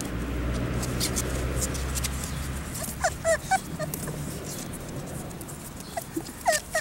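Nearly month-old puppies whimpering and squeaking: a run of short, high, wavering cries starting about three seconds in, with more near the end.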